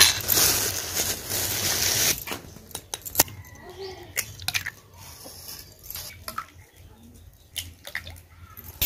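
A thin plastic bag rustling loudly for about two seconds as eggs are taken out of it, then scattered sharp clicks and taps of eggshells being cracked open, with egg dripping into a bowl.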